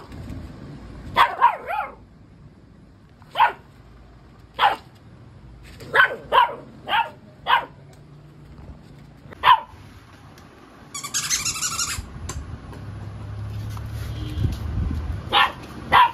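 Puppy barking in short yaps while at play, about a dozen barks in scattered clusters. A hissing noise lasting about a second comes shortly after the middle.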